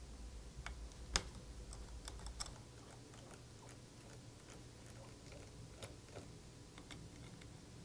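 Faint small clicks and ticks of a precision screwdriver turning out the tiny screws that hold a MacBook Pro's cooling fan, the metal bit catching in the screw heads, with one sharper click about a second in.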